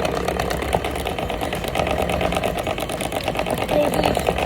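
A small motor running steadily with a rapid, even clicking rattle.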